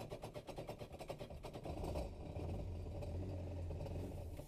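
Yamaha WaveRunner four-stroke engine cranking on its starter with even, rapid strokes, then catching about two seconds in and running evenly.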